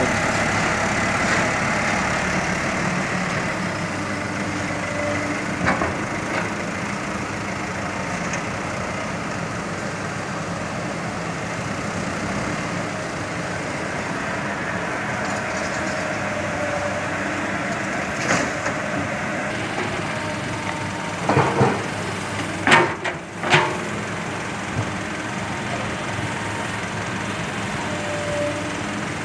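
Diesel engines of a hydraulic excavator and a Hino dump truck running steadily while the excavator loads hard soil into the truck's bed. A cluster of sharp knocks comes about three-quarters of the way through.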